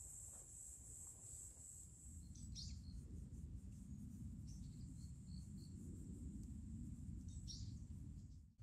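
Faint woodland ambience. A steady high insect trill, like a cricket, fades out about two and a half seconds in. After that come scattered short bird chirps over a low background rumble that grows louder.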